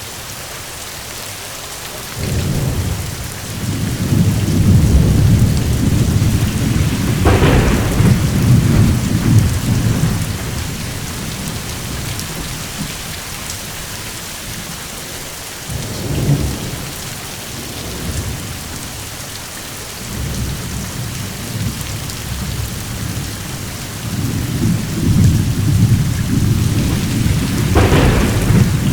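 Steady rain with rolling thunder. A long rumble starts about two seconds in, with a sharper crack partway through, and a short rumble comes around the middle. Another long rumble builds near the end with a second crack.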